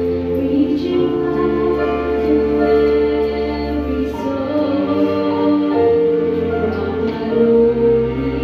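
Church choir singing a slow anthem, with sustained chords and a held bass line in the accompaniment.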